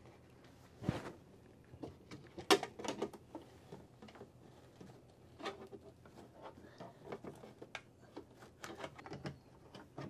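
Irregular small clicks and knocks of plastic parts being handled as the faceplate of a built-in RV sweep vacuum is worked off and on to reach its bag. The loudest knock comes about two and a half seconds in.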